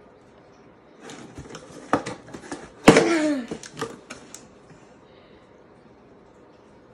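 Cardboard box flaps being pulled open: rustling, scraping and small clicks of cardboard. Near the middle comes a sharp sound, then a short vocal sound falling in pitch.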